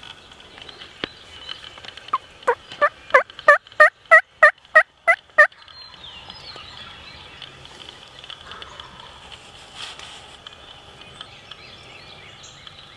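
A series of about ten loud wild turkey yelps, evenly spaced at roughly three a second, lasting about three seconds, with faint songbirds in the background.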